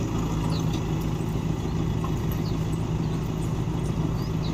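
A motor vehicle engine idling: a steady, unbroken low hum, with a few faint short high chirps over it.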